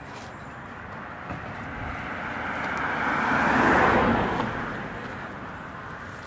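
A car passing by on the road, its noise growing to a peak a little past halfway and then fading away.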